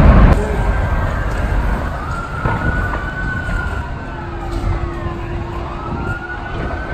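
Several emergency-vehicle sirens wailing over one another, each slowly rising and falling in pitch. A loud low rumble cuts off just after the start, and a steady low tone sounds for about two seconds midway.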